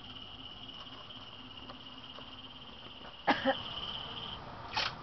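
A high, steady trill, like an insect's, holding one pitch for about four seconds before it stops. Two sharp clicks come a little past three seconds in, and a short rasping burst near the end.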